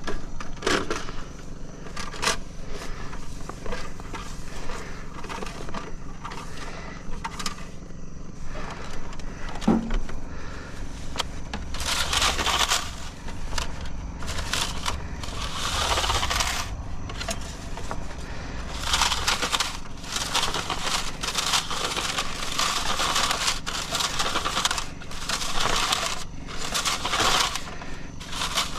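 Digging in stony soil: gritty scraping and crunching over a steady low engine hum. The scraping comes in repeated bursts from about halfway in.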